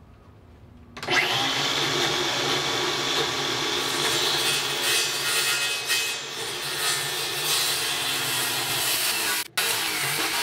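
Handheld electric power tool spinning up about a second in, then running steadily as it cuts into the wood of the transom edge to rough out a bevel. There is a brief break near the end.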